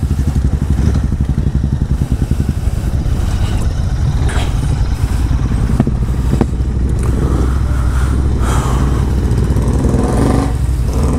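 Royal Enfield Interceptor 650's parallel-twin engine, fitted with an aftermarket Powerage exhaust, running with a steady low engine note. A few sharp clicks come through around the middle.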